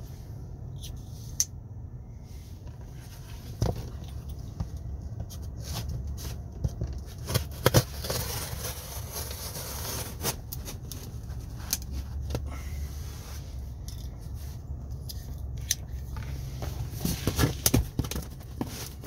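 Packing tape on a cardboard shipping box being cut and torn open: scattered scrapes and clicks, with a longer stretch of tearing and crackling around the middle, over a low steady hum.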